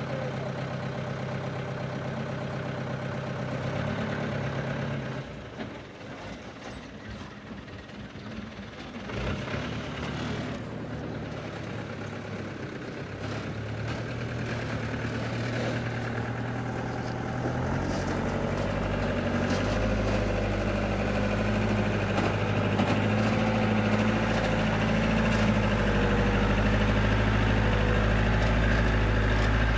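Engine of a light truck loaded with concrete blocks, idling at first, then fading for a few seconds. It comes back and grows steadily louder in the last third as the truck pulls under load up a steep dirt track.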